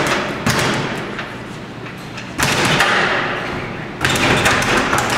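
Speed bag being punched, the leather bag rattling rapidly against its rebound platform. The rattle starts loud in three sudden bursts, about half a second, two and a half seconds and four seconds in, and fades away between them.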